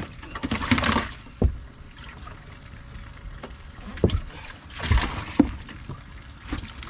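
Water sloshing and splashing in a bass boat's livewell as a hand grabs for slippery bass, with several sharp, dull thumps against the well.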